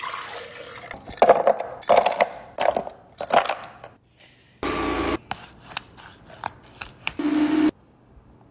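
Blender chopping frozen fruit in its jar, with irregular clattering bursts, then two short, steadier pulses of the motor about five and seven and a half seconds in.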